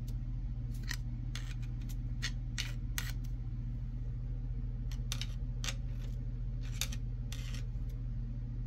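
Irregular light metallic clicks as a Buick V6 crankshaft is pushed back and forth against its thrust bearing to check end play on a dial indicator, over a steady low hum.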